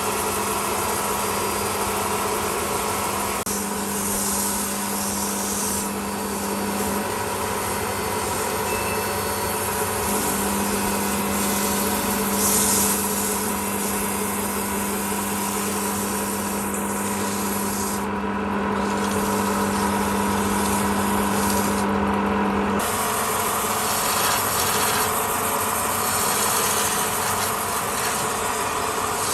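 Wood lathe running with a steady hum while a turning tool scrapes against the spinning wood. The hum drops out for a few seconds and stops about two-thirds of the way through, while the scraping goes on.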